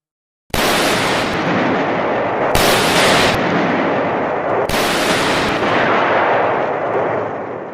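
Designed shotgun gunshot sound effect fired three times, about two seconds apart, each shot a sudden loud blast trailing into a long, dense echoing reverb tail that fades out toward the end.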